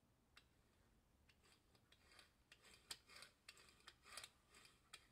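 Faint quick clicks and scrapes, bunched from about a second and a half in, as the butterfly valve of a VW 1.4 TSI electronic throttle body is worked open and shut by hand.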